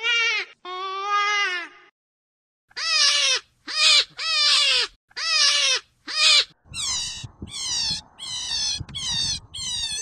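Hare squealing: a series of drawn-out, wavering high calls that fall in pitch. From about seven seconds in, a quicker run of shorter calls, about two a second, over a rough noisy background.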